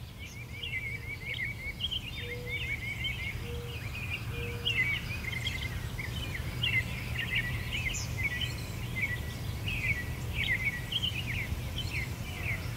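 Outdoor ambience of several birds singing at once, a busy chorus of quick chirps and short phrases, over a steady low rumble. Three short low notes sound between about two and five seconds in.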